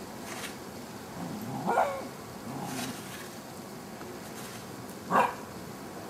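Dog barking twice, two short barks about three seconds apart.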